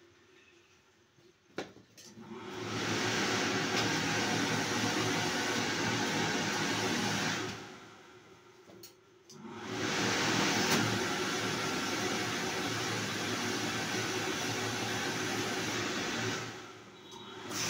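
Ironing table's vacuum blower motor running with a steady rushing whoosh, switched on about two and a half seconds in, off for about two seconds near the middle, then back on, and cut off shortly before the end, with faint clicks in the pauses.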